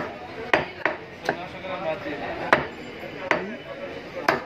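Heavy butcher's cleaver chopping goat meat on a wooden chopping block, about seven sharp, unevenly spaced chops.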